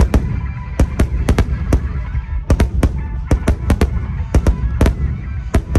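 Aerial firework shells bursting in a rapid barrage: a dozen or more sharp booms in quick succession over a continuous low rumble, resonating heavily.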